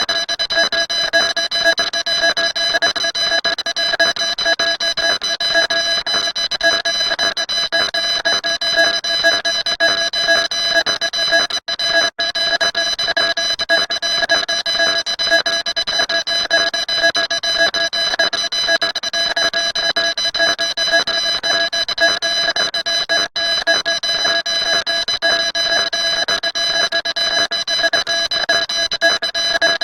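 Shrill electronic alarm-like tone, several steady pitches sounding together with a fast flutter. It cuts out for an instant twice about halfway through and once more later.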